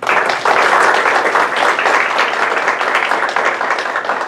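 Audience applauding: a dense round of clapping that starts suddenly and eases slightly toward the end.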